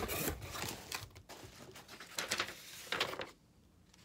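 Cardboard box and paper packaging being handled, rustling and crinkling with short crackles as the box is unpacked, stopping about three seconds in.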